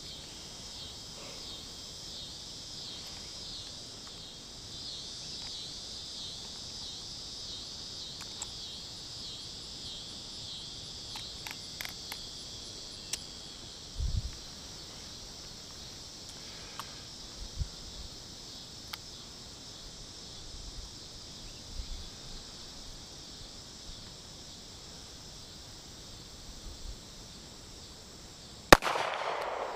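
Insects trilling steadily in a high, pulsing chorus, with a few faint clicks and knocks. Near the end a single handgun shot cracks out sharply, the loudest sound, and rings briefly.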